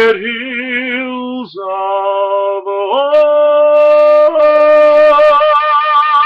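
Solo male voice singing the long held final notes of a musical-theatre ballad, with vibrato, moving through a few sustained pitches and growing louder over the last few seconds.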